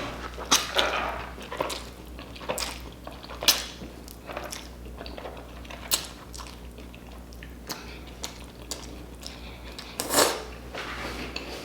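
Close-miked mouth sounds of eating saucy spicy noodles face-first from the bowl without hands: wet chewing and smacking with scattered sharp clicks, and a louder wet burst about ten seconds in.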